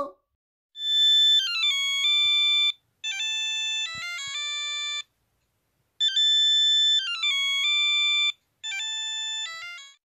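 Mobile phone ringtone: a beeping electronic melody of stepped notes in four short phrases, the two-phrase tune played twice with brief gaps.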